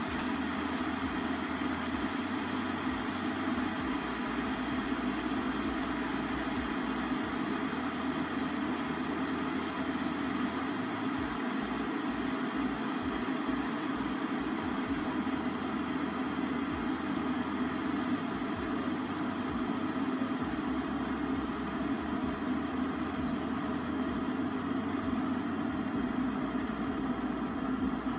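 Stainless steel electric kettle heating about half a litre of water toward a 190°F setting, a steady hiss and rumble as it comes to the boil.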